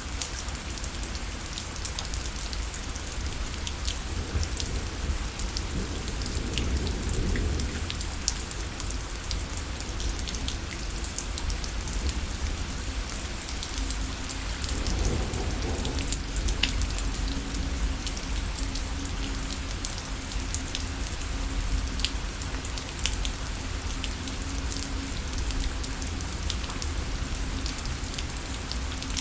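Steady rainfall, a dense hiss with many individual drops ticking on a surface over a constant low rumble. Twice a low rumble swells up and fades, about five and fifteen seconds in.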